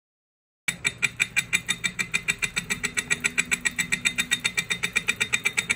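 Wahoo Kickr 2018 bicycle trainer running with a fast, even ticking, about eight clicks a second over a low hum, starting just under a second in. This is the trainer's known abnormal noise, which a replacement kit of a new pulley bolt, shim and key is meant to cure.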